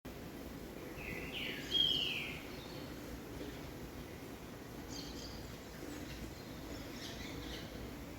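A small bird calling over steady background noise. About a second and a half in comes one loud call that slides down in pitch, followed later by a few fainter short chirps.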